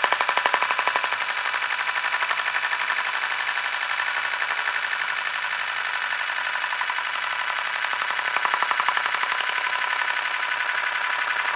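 Rotation sound effect: a spinning mechanism giving a steady, fast rattling whir of rapid clicks, swelling louder twice.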